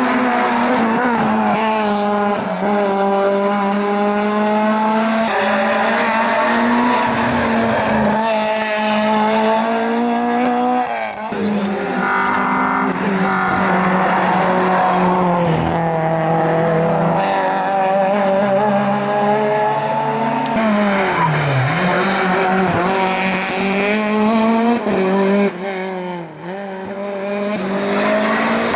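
Race car engine at full throttle on a tarmac hillclimb, revving up and dropping back with each gear change several times over, with tyre squeal.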